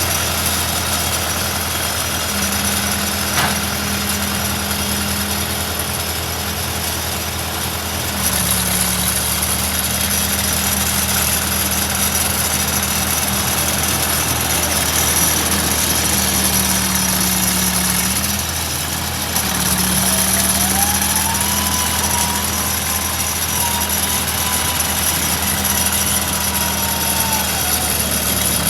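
Case 580C backhoe's engine running steadily, getting louder in steps about eight seconds in and again just before twenty seconds. A faint whine rises and holds for several seconds near the end.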